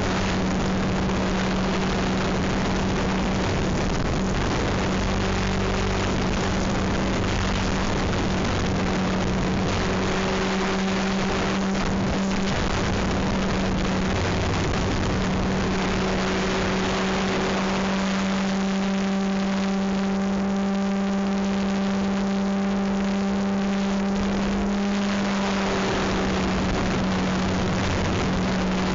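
Goosky E2 electric RC helicopter in flight: a steady motor-and-rotor hum under a strong rush of air. About two-thirds in, the hum strengthens and gains higher overtones for several seconds, then settles back.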